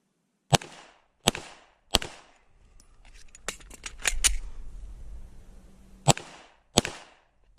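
Glock pistol fired three times about two-thirds of a second apart. A quick run of metallic clicks and clatter follows as the magazine is changed, then two more shots and a third right at the end.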